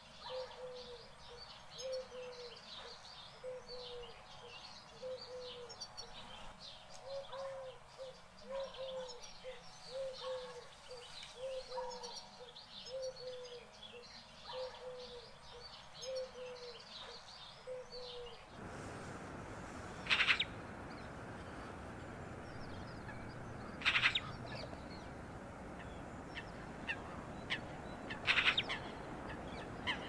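Wild bird sounds: high chirps over a soft, low note repeated about once a second. About two-thirds of the way in this gives way to a steady hiss, broken by three or four loud, sharp high calls.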